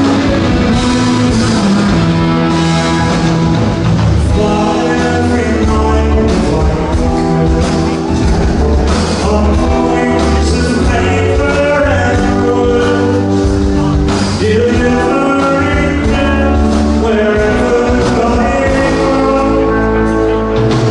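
A rock band playing live, with electric guitars over bass and a drum kit, loud and continuous.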